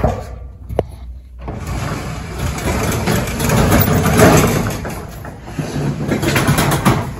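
Corrugated metal roll-up storage-unit door being unlatched with a couple of clicks and pushed up by its bottom handle, rattling as it rolls open. The rattle is loudest about four seconds in.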